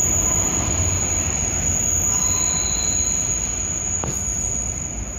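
SEPTA Broad Street Line subway train (Kawasaki B-IV cars) pulling away into the tunnel: a low rumble of wheels on rail that slowly fades, with a faint wheel squeal around the middle. A thin steady high whine runs underneath.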